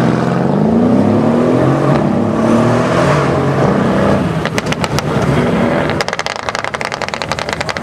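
Mercedes CLS 63 AMG's V8, tuned to 700 hp with a crackle exhaust, on the throttle with its note climbing over the first three seconds. Then a few sharp exhaust cracks about four and a half seconds in, and a rapid run of crackles and pops off throttle over the last two seconds.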